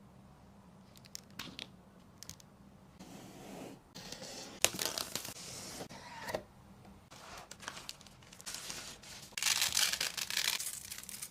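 Plastic packaging being torn and crinkled in several bursts, the longest and loudest near the end, with a few light clicks early on.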